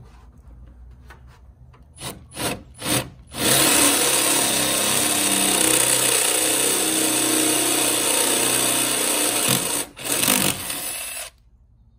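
Cordless drill with a 3/8-inch bit boring through the metal side wall of a school bus, opening out a pilot hole. About two seconds in come three short blips of the trigger, then a steady run of about six seconds. After a brief pause there is a last second of drilling before it stops.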